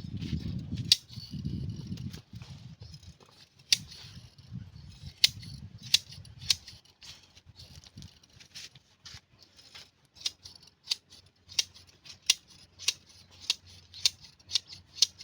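Scissors snipping through sheep's wool during hand shearing: sharp, irregular snips at first, then a steady rhythm of about one and a half snips a second. A low rumbling noise runs under the first half.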